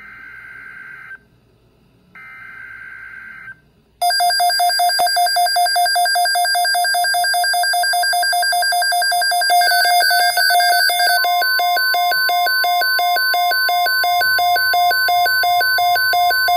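Two short bursts of the NOAA Weather Radio SAME digital header, a warbling data screech, come first. About four seconds in, Midland weather radios set off their alert alarms: loud, rapid, pulsing beeps, signalling a severe thunderstorm watch. A steady tone joins the beeping about eleven seconds in.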